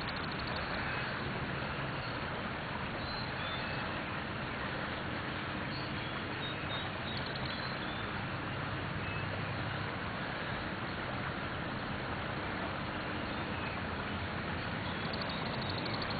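A creek in flood rushing steadily, a constant even wash of water noise.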